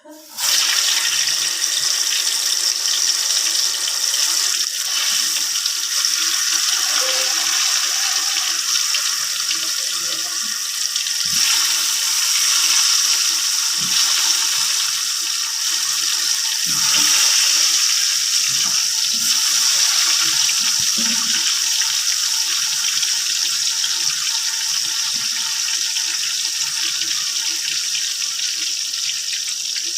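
Water running steadily from a tap into a sink, starting abruptly, with faint knocks beneath.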